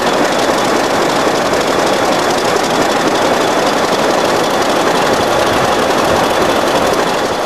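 British Rail Class 50 diesel locomotive 50037 idling steadily, its English Electric 16-cylinder engine running at an even, unchanging note.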